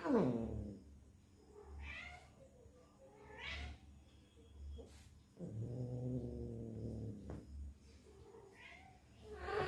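Calico Persian cat in heat yowling: several short calls, the first sliding down steeply, and one long, low, drawn-out yowl about halfway through, the calling of a female in heat. Soft low thumps about once a second come from a hand patting her rump.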